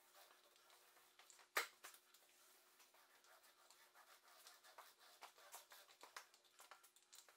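Faint scratching strokes of a brush spreading finish along a solid oak tabletop, with one sharp click about one and a half seconds in.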